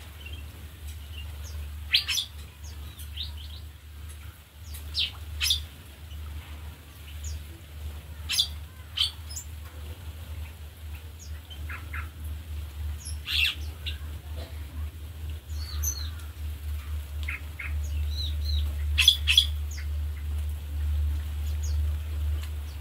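Small aviary birds calling: short, sharp chirps and call notes from several birds, scattered irregularly, over a steady low hum.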